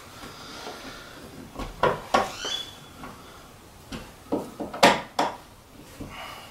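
Handling noise of Romex cable being worked through a hole in a drywall wall: irregular knocks, clicks and scraping rustles, with a brief high squeak about two and a half seconds in.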